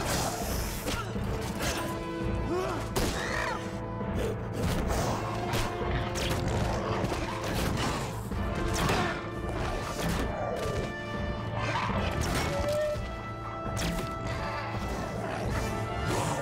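Orchestral film score with sustained strings and brass, over battle sound effects: repeated sharp blows, clashes and thuds of a sword fight.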